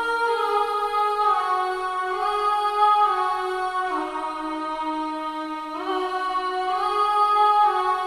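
Sampled pad from the Death Piano Kontakt library's E-Bow string pad patch, playing a slow progression of sustained, voice-like chords. Each new chord swells in softly as the last fades, every second or two.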